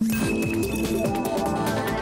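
Electronic opening theme music that starts abruptly out of silence and plays on at a steady loud level.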